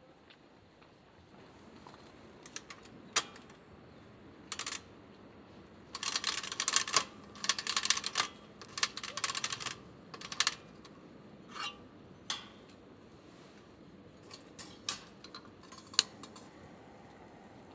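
Irregular sharp clicks and short bursts of clattering, as of hard objects being handled, with a dense run of rattling in the middle and a few loud single clicks.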